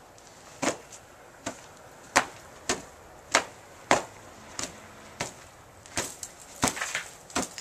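Cloth towel swiped through snow, a sharp swish or thwack with each stroke, about a dozen strokes at roughly two a second.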